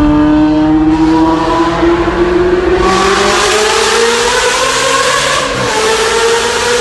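Vehicle engine accelerating hard in a tunnel, its pitch climbing steadily, with a brief dip about five and a half seconds in like a gear change before it climbs again.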